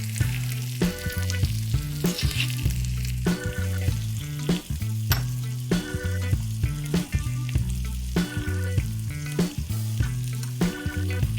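Food sizzling as it fries in oil in a miniature pan, under background music with a repeating bass line.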